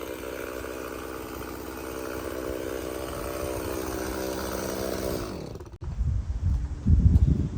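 Stihl MS 391 two-stroke chainsaw running steadily, then slowing down about five seconds in as its pitch drops away. Low, uneven rumbling fills the last two seconds.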